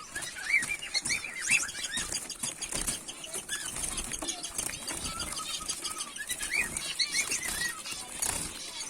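A group of caged finches chirping in short, overlapping calls, busiest about a second in and again near the end, with brief wing flutters and light clicks among them.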